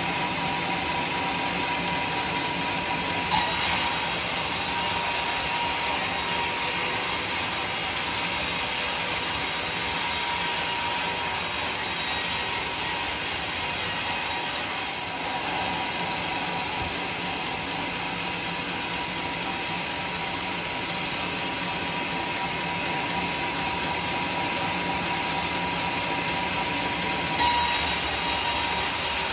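Homemade band sawmill running, its new blade ripping lengthwise through a teak beam over a steady whine. The cutting noise jumps up sharply about three seconds in, eases off about halfway through, and jumps up sharply again near the end as the blade enters the wood for a fresh cut.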